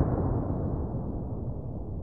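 The deep rumble of a large explosion's boom, slowly dying away.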